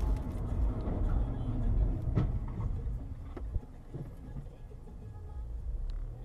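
Car driving along a motorway, with low engine and road rumble picked up by the dashcam inside the cabin. The rumble drops about three and a half seconds in. A few sharp clicks come through it.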